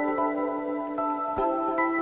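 Background music: held, ringing chords whose notes change every second or so, with no beat.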